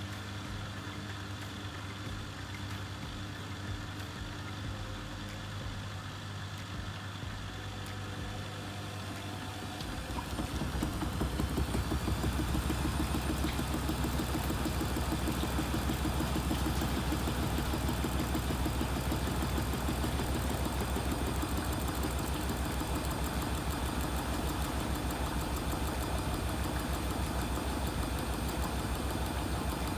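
Vestel washing machine humming steadily, then its motor speeding up about ten seconds in into a louder, steady rumble as the drum spins up.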